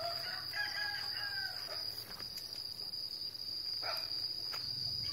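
A rooster crows once, faintly, for about a second and a half near the start, over a steady high-pitched insect drone.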